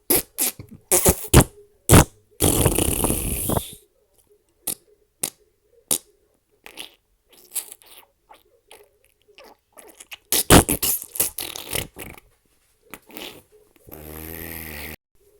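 A run of fart sound effects: short sputters and pops with gaps between them, a longer hissing one about two and a half seconds in, a dense cluster of rapid sputters around ten seconds in, and a low buzzing one near the end.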